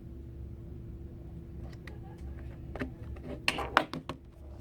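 Clicks and taps of a Dell Chromebook's plastic case being handled during reassembly, sparse at first and coming thick and sharp in the second half, over a steady low hum.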